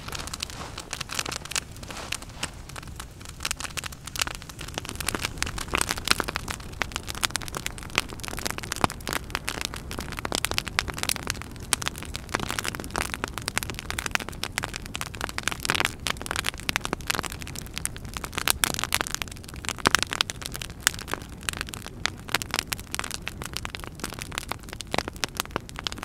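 Log campfire crackling and popping steadily, many sharp irregular snaps, over a low rumble of gusting wind.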